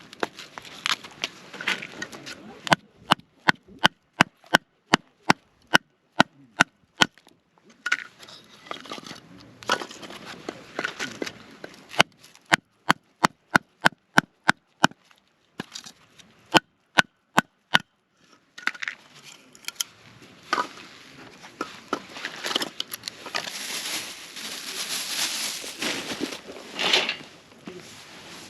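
Three runs of sharp knocks struck about three times a second, the loudest sounds here, with rustling and handling noise between the runs and a rising hiss near the end.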